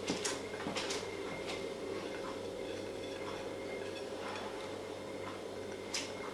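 Quiet room tone with a steady low hum and a few faint clicks, three about a second apart near the start and one more near the end.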